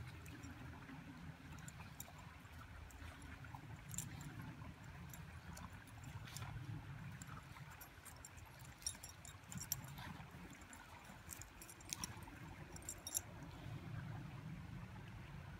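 Golden retriever and Groenendael wrestling in snow, heard faintly: scattered crunches and light clicks over a low steady rumble, with a few sharper clicks around ten and thirteen seconds in.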